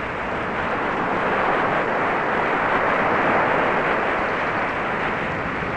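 Steady rushing noise of wind and rough sea on the deck of a ship under way, with no change in level.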